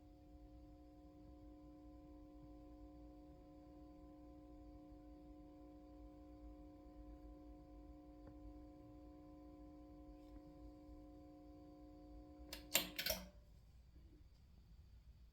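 BRZHIFI Goldmund Telos 300 clone power amplifier putting out a steady hum of several pitched tones, a hum fault that the owner finds far worse than expected. About 13 seconds in, a quick burst of loud clicks, and the hum stops.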